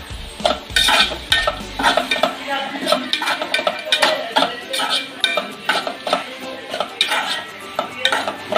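Sliced onions, green chillies and curry leaves being stirred and sautéed in oil in an aluminium pot: quick, repeated scrapes and clinks of the stirring utensil against the metal, over a light sizzle.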